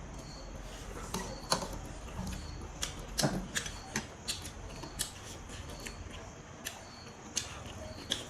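Scattered light clicks and taps at irregular intervals, over a faint high-pitched chirp that recurs every second or so.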